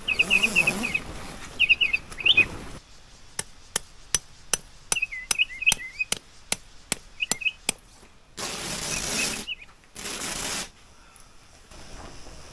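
Small birds chirping in short, quick phrases, with a run of sharp clicks, about three a second, through the middle. Two bursts of rushing noise, each about a second long, come near the end.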